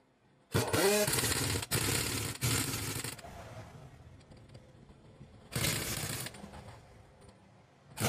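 Pneumatic impact wrench hammering on a truck's wheel nuts in bursts. The first starts about half a second in and runs about two and a half seconds with two brief breaks, its pitch rising as it spins up. A shorter burst comes about six seconds in.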